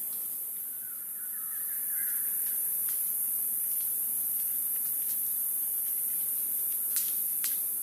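Outdoor ambience: a steady high-pitched hiss, with a short bird-like call about a second in and two sharp clicks near the end.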